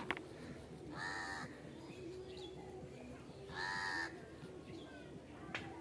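Two harsh, drawn-out animal calls, each about half a second long and some two and a half seconds apart.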